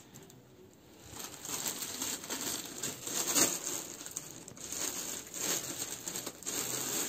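Clear plastic garment bags crinkling and rustling as folded, bagged abayas are handled and shuffled on a stack. It starts about a second in and comes in uneven spells of louder and softer rustling.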